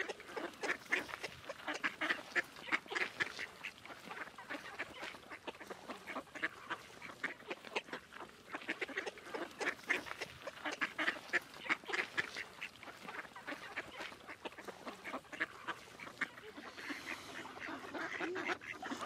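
A flock of mallards quacking while they crowd in to feed, many short calls in quick succession.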